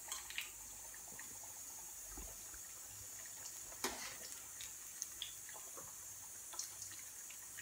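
Masala vadas (lentil fritters) deep-frying in hot oil: a steady, quiet sizzle with a few small pops and crackles scattered through it, the batter crisping as it cooks.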